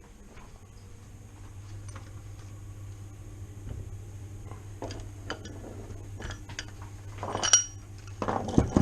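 Metal tools and parts clinking and clattering as an engine is being stripped, with light scattered ticks, one sharp ringing clink about seven and a half seconds in and a heavier clatter just before the end.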